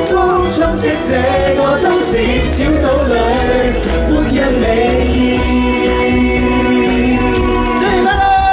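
Male and female pop singers singing a Cantonese song live together over a backing track, holding long notes for the last few seconds.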